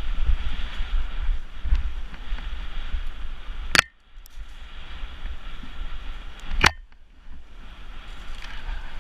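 Wind buffeting the microphone, a low rumble under a steady hiss, broken by two sharp clicks about four and seven seconds in, each followed by a brief dip.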